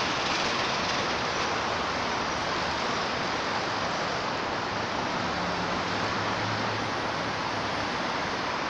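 Steady, even rushing noise with no distinct events, and a faint low hum near the start and again about two-thirds of the way through.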